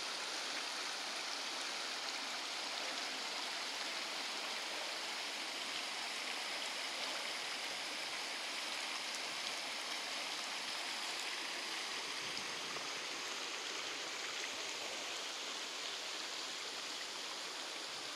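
Creek water flowing in a steady, even rush, unbroken throughout.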